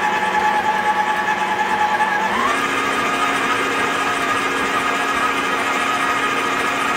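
Electric stand mixer's motor running with a steady whine as its flat beater mixes cake batter; about two and a half seconds in the pitch steps up as the speed dial is turned higher.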